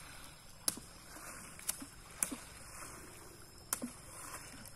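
Water sloshing and splashing as people wade, pushing mosquito-net scoops through a shallow river, with four sharp clicks or taps spread through.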